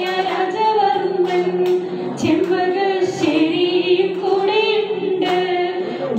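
Background music: a song with a singing voice over instrumental backing.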